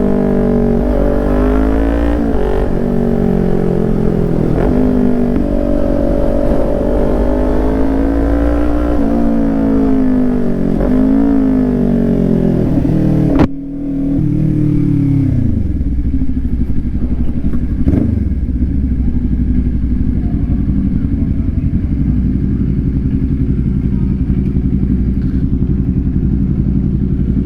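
Kawasaki Ninja 400 parallel-twin engine pulling at low speed, its revs rising and falling repeatedly. About halfway through there is a sharp click, the revs drop away and the engine settles into a steady idle, with one more click a few seconds later.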